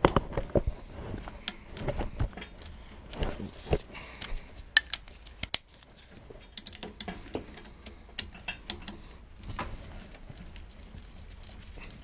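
Irregular clicks, taps and light rattles of gloved hands working at an ECM blower motor's control module and wiring inside the air handler cabinet, busier in the first half.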